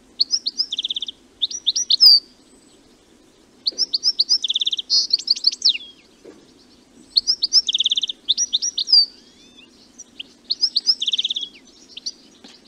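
European goldfinch singing: four phrases of rapid, liquid twittering, each mixing quick high notes with a short buzzy trill, separated by pauses of about a second.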